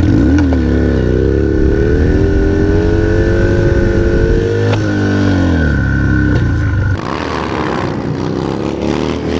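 Harley-Davidson Dyna V-twin motorcycle engine revving under acceleration, its pitch rising and falling, with a sharp fall in revs about five seconds in. In the last two seconds the engine is lower and an even rushing noise comes up with it.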